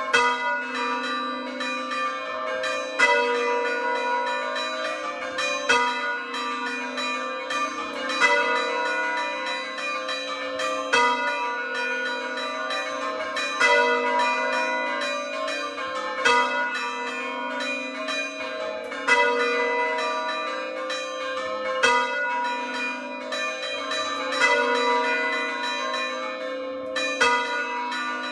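A set of four hand-rung church bells ringing together, the largest tuned to A3, with overlapping strikes throughout and a louder stroke about every two and a half to three seconds.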